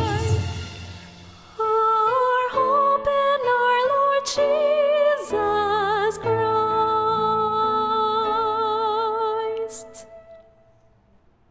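Close of a slow Christian Christmas song: group singing fades over the first second or so, then a solo female voice carries a wordless melody with vibrato over soft sustained backing, with a few brief high accents. The music fades out near the end.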